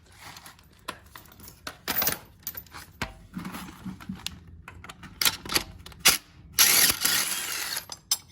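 Metal hand tools and car parts clinking and knocking against each other in a string of irregular sharp clanks, with a longer, louder burst of noise about six and a half seconds in.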